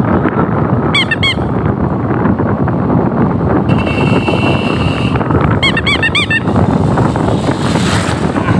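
Wind rushing over the microphone of a helmet-mounted phone on a moving motorcycle. It is joined by two short high chirps about a second in, a steady high tone for about a second and a half near the middle, and a quick run of chirps a little later.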